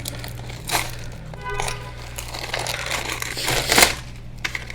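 Plastic wrapping crinkling and rustling in several short bursts as parts are handled, over a steady low hum.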